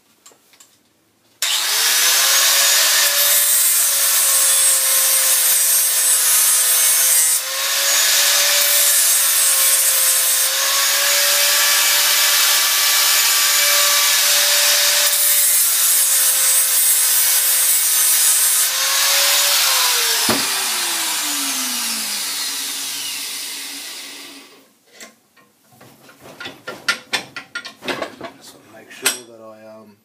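Angle grinder switched on about a second and a half in, grinding the tip of a steel Phillips drill bit clamped in a vise, running steadily with a held whine for about eighteen seconds. It is then switched off, its whine falling as the disc winds down over a few seconds, followed by a scatter of clicks and knocks.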